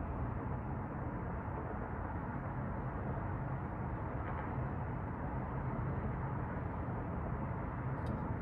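Steady, even hum of city street traffic heard from high above, a low rumble with no single vehicle standing out.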